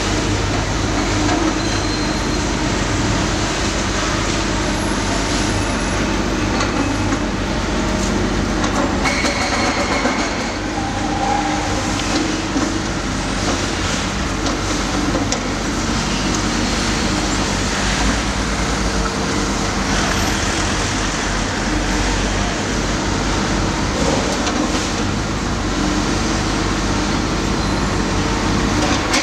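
Diesel engine of a JCB tracked demolition excavator running steadily under load, with concrete rubble grinding and a few sharp knocks as the building is torn down.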